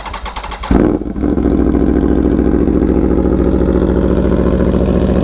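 Aprilia Tuono V4 1100 Factory's V4 engine, with an SC-Project CR-T exhaust, cranking on the starter for just under a second, catching with a loud burst, then settling into a steady idle.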